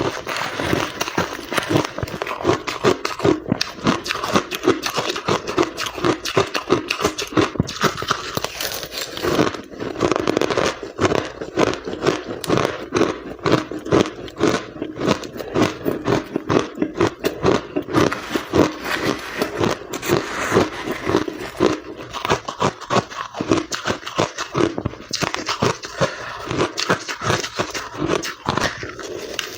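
Close-up chewing and crunching of powdery ice, dense irregular crunches several times a second.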